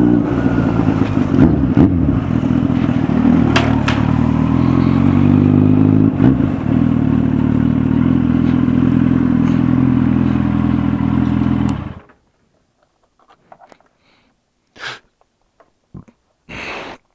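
Kawasaki Z800's inline-four engine running steadily, then stopping abruptly about twelve seconds in, leaving a few short faint noises.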